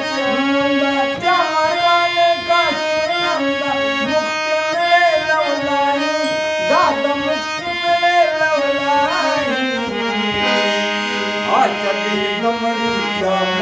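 Harmonium playing a melody over held reed chords, moving to a lower chord about ten seconds in, with a man's singing voice rising over it in places.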